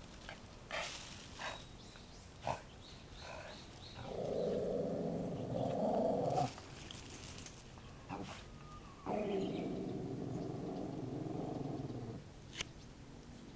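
An animal growling in two long, low, rough spells, the first about four seconds in and the second about nine seconds in, with a few faint clicks between them.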